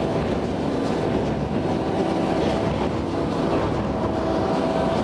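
Claas 3300 large square baler running empty at tick-over on the tractor's PTO, a steady mechanical clatter over the engine's drone, run to warm its gearbox oils before they are drained.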